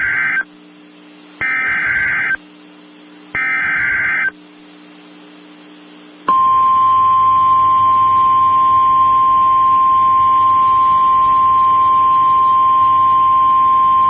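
NOAA Weather Radio emergency alert tones for a tornado warning: the screeching digital SAME header bursts, each about a second long with a second's gap, the last two heard whole, which encode the alert for receivers. About six seconds in, the steady single-pitch 1050 Hz warning alarm tone starts and holds.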